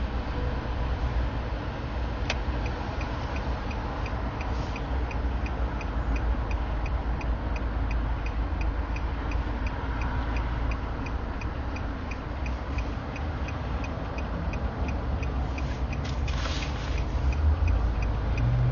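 Steady low road rumble inside a moving car, with a turn-signal indicator ticking about three times a second from about two seconds in.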